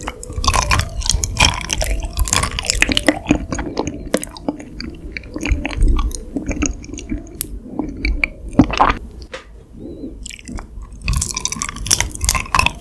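Close-miked chewing of raw honeycomb: the wax comb and honey worked in the mouth in a dense run of small clicks and wet mouth sounds. The chewing eases off about ten seconds in, then picks up again with a fresh bite.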